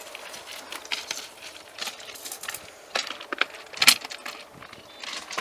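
Cambodian bamboo train (norry) platform being lifted and set down onto its steel wheel axles on the rails: a scattered series of sharp clacks and clinks of wood against metal, the loudest knock about four seconds in.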